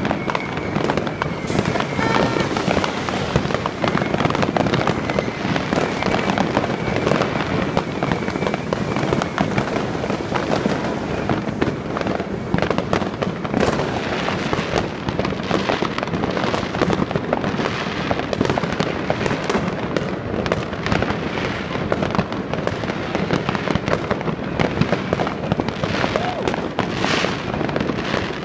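New Year's fireworks and firecrackers going off without a break: a dense, steady clatter of bangs and crackles. A high steady whistling tone runs over it for about the first nine seconds.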